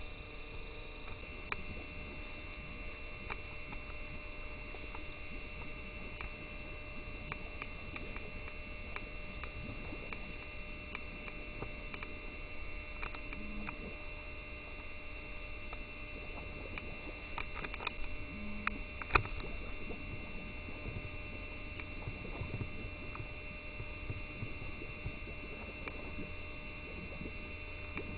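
A steady hum made of several held tones, with scattered faint clicks and one sharper click a little past the middle.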